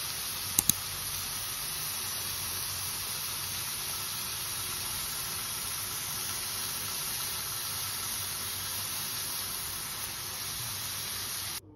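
Tofu slices frying in a pan with a steady sizzle. Two sharp clicks come about half a second in, and the sizzle cuts off abruptly near the end.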